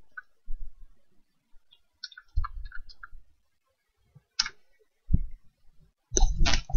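Computer keyboard keys typed in short, scattered bursts of clicks, a quick run of keystrokes about two seconds in, with a few low thumps among them.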